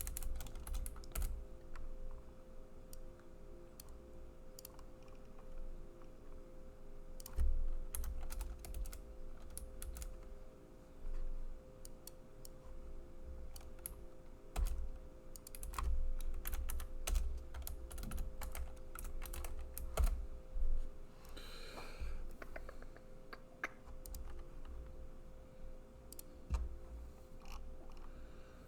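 Typing on a computer keyboard: irregular spurts of keystroke clicks with pauses between, over a faint steady hum.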